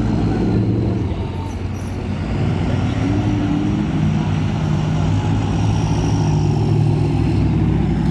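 Pickup trucks and cars driving slowly past one after another, their engines running with a steady low exhaust note; one engine note rises briefly about three seconds in.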